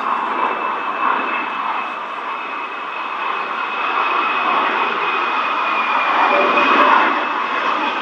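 F-22 Raptor's twin turbofan jet engines on a low flyover, a broad rush with a steady high whine running through it, growing louder in the second half as the jet comes closer.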